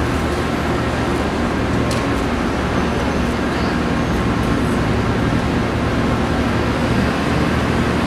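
Steady street traffic noise: a constant rumble of vehicle engines with a low hum underneath, unbroken throughout.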